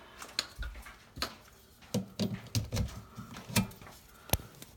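Scattered knocks, dull thumps and rubbing from a handheld phone camera being moved about, with one sharp click a little before the end.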